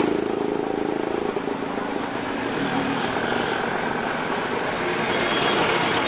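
Street traffic noise: a vehicle engine running over a steady din.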